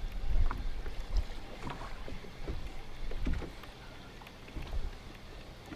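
Wind gusting on the microphone over choppy water lapping against a fishing boat's hull, with a few faint ticks. The rumble comes in uneven gusts, strongest in the first second.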